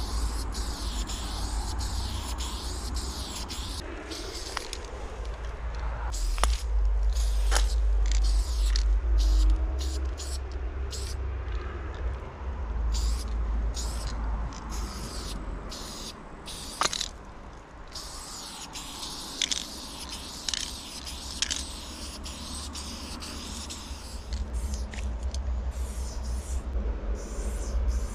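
Aerosol spray paint can hissing in repeated bursts, with short breaks between strokes. A low rumble runs underneath, strongest about a quarter to a third of the way in.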